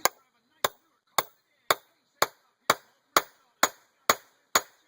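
A hammer striking a hammer-type lug crimper again and again, with sharp metallic blows about two a second. It is crimping a 2/0 lug onto 1/0 gauge power cable.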